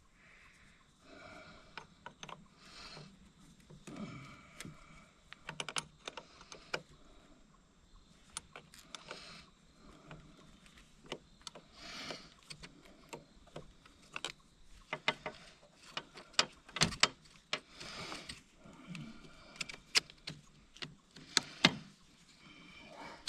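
Hand wrench working a bolt: irregular metal clicks and clinks, with short scraping squeaks between them.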